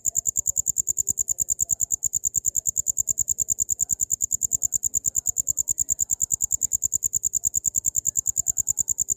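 Cricket (jangkrik) chirping: a loud, high-pitched pulsed trill repeating evenly, about eight pulses a second.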